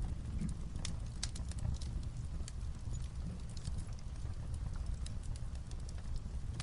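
Light rain on a roof mixed with a fireplace crackling: irregular sharp pops and ticks over a steady low rumble.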